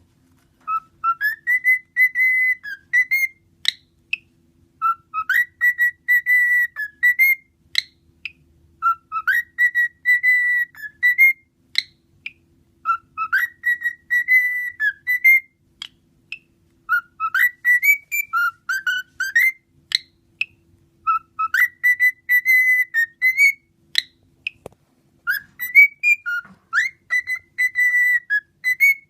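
Cockatiel whistling the same short tune over and over, about seven times, one phrase every four seconds or so: each phrase rises to a held clear note and ends with a little upward flick.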